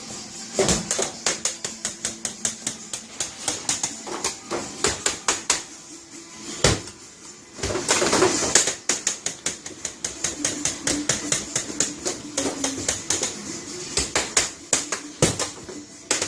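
Rapid, steady chopping on a cutting board, about five strikes a second, with a few heavier thumps, over background music.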